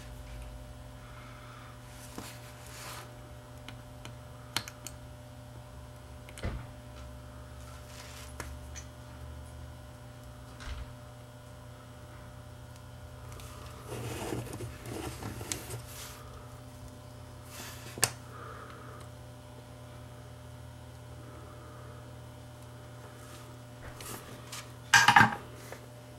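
Small metal tools clicking and tapping on an electronics workbench during hand soldering of surface-mount parts, over a steady low electrical hum. The clicks come singly every few seconds, with a short cluster about halfway and a louder knock near the end.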